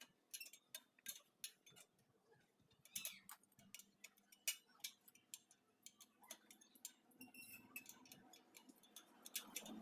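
Faint, irregular metallic ticks and clicks, several a second, from hand work on a spoked motorcycle wheel's spokes and nipples.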